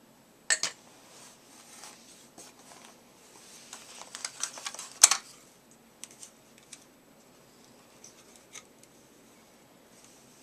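Hard plastic parts of a Swivel Sweeper being handled and set down: a sharp knock about half a second in, a run of small clicks and rattles, the loudest knock about five seconds in, then a few light taps.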